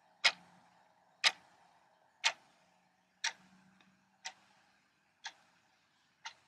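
Clock ticking once a second, seven ticks, the last few growing fainter.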